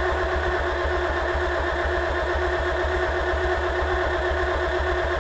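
Farmall Cub's four-cylinder engine cranked over by its starter for a compression test on cylinder three: a steady whine over a regular low pulsing of the compression strokes. The cylinder reads only about 30 psi, the worst of the four, a sign of low compression.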